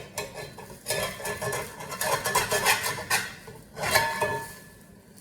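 Cookware and metal utensils clattering and clinking against pans and dishes, with a few short ringing metal clinks. The clatter is busiest through the middle and dies down near the end.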